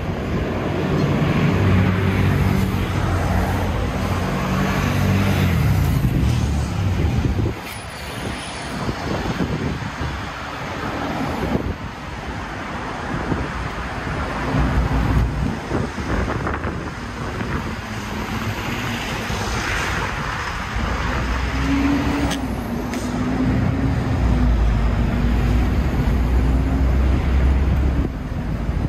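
City street traffic: vehicles passing on the road with a continuous hiss of tyres and engines. A low engine hum stands out in the first several seconds and again in the last several seconds.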